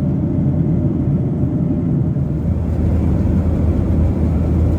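Steady cabin noise of a Boeing 737-800 at cruise, heard from inside the main cabin: a low, even drone from the twin CFM56-7B turbofans and the air rushing along the fuselage.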